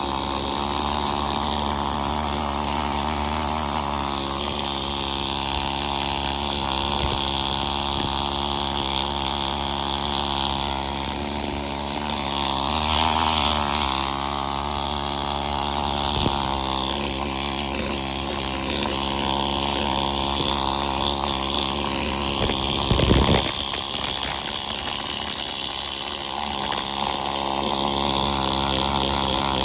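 Pneumatic needle scaler buzzing steadily as its needles hammer loose rust scale off a rusty axle differential housing, with one brief louder clatter about three quarters of the way through.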